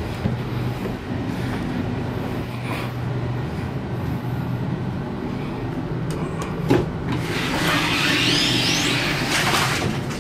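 Steady low hum inside a parked Waratah electric train carriage. About seven seconds in a click, then the automatic inter-car end door slides open with a rush of air and a rising whine for a few seconds.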